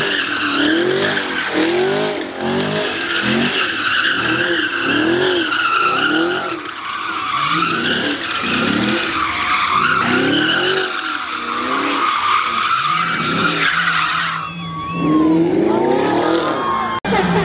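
Chevrolet Camaro doing donuts: its tyres squeal without a break while the engine revs rise and fall over and over. Near the end the squealing stops and the engine revs up once more.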